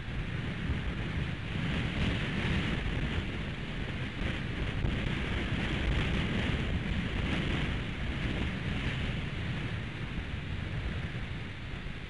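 Strong, gusty wind blowing over the microphone: a low rumbling buffet with a rushing hiss above it, swelling through the middle and easing off near the end.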